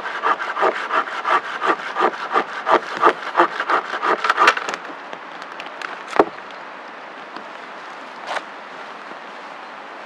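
Hand saw cutting through a dead branch, about three strokes a second, stopping about four and a half seconds in. A single sharp wooden knock follows a little after six seconds.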